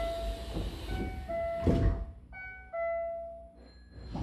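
Train door-closing chime, a falling two-note tone repeating about once a second, over a hiss as the sliding doors close. The doors shut with a thud about two seconds in, the loudest sound here, and the chime sounds a couple more times before stopping.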